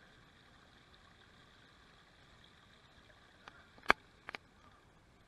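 Rainwater runoff trickling faintly and steadily. About four seconds in there is one sharp click or knock, then two smaller ones just after.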